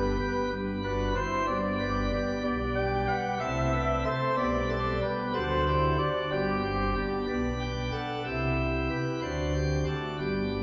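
Organ music: sustained chords over a bass line that moves to a new note about every second.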